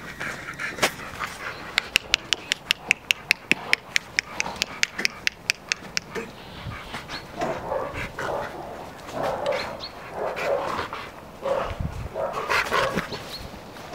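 Rottweiler panting with soft whines in the second half. Before that comes a quick, even run of sharp clicks, about five a second, lasting some four seconds.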